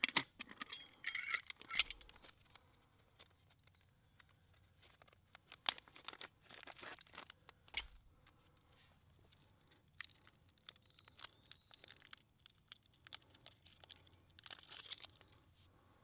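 Stainless steel camp cook pot and lid being handled: scattered light metal clicks and clinks, with short bursts of plastic bag and packet crinkling.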